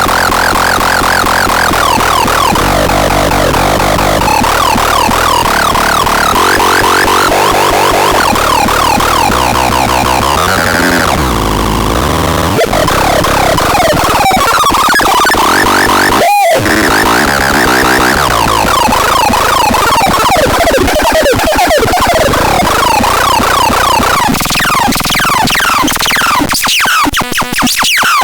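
Electronic sound device being demonstrated: loud, warbling synthesizer tones that wobble rapidly up and down in pitch, with a quick downward sweep about halfway through and choppy, stuttering sounds near the end.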